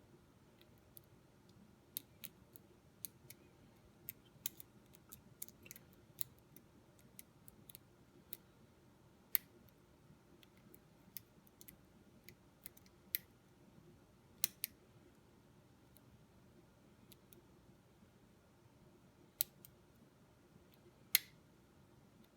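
Lock pick and tension wrench working the pins of an ERA pin-tumbler lock: faint, irregular sharp metallic clicks, bunched through the first half, with two louder clicks near the end.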